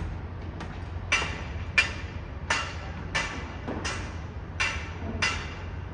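Construction-site hammering: a steady series of sharp, ringing strikes, about one and a half a second, with seven loud ones from about a second in, over a steady low rumble.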